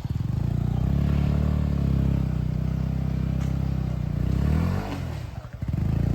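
Motorcycle engine running under load on a rough off-road trail, its pitch rising and falling with the throttle. About five seconds in it drops away briefly, then picks up again.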